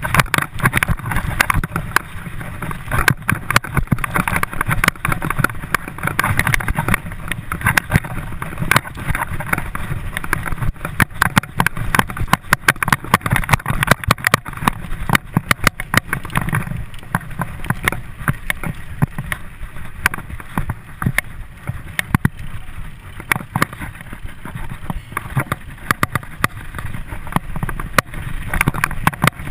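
Mountain bike ridden fast over a dirt forest singletrack: constant rattling and knocking from the bike and camera over the bumps, over a low rumble of tyres and wind on the microphone.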